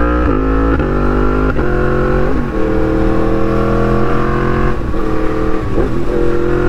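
Yamaha MT-10's crossplane inline-four with an SC-Project exhaust, heard from the rider's seat while riding. It changes up through several quick gears in the first couple of seconds, the pitch dropping at each shift, then holds a steady drone, with brief dips in revs around five and six seconds in.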